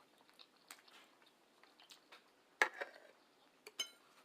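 Soft, close-miked chewing and wet mouth sounds of someone eating spaghetti, with a louder smack about two and a half seconds in and a light ringing clink, like a fork on a plate, near the end.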